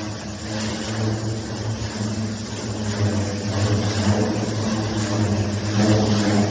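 Pressure washer running: a steady engine drone with the hiss of the high-pressure water spray.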